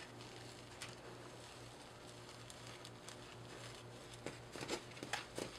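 Faint handling noise: soft rustling of gauze and Velcro straps being wrapped and pressed over the arm, with a few light taps and clicks near the end, over a low steady hum.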